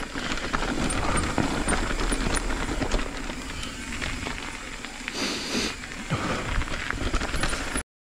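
Mountain bike rolling down a rocky dirt singletrack: tyres crunching over gravel and the bike rattling on the bumps, with a low wind rumble on the helmet-mounted camera's microphone. The sound cuts off suddenly near the end.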